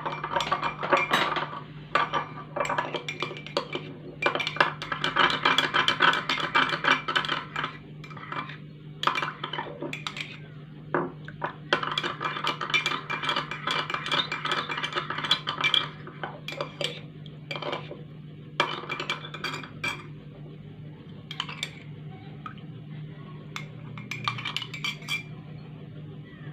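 Kitchen utensils clinking and scraping against dishes: two long spells of rapid clinking and scattered single clinks in between and afterwards, over a steady low hum.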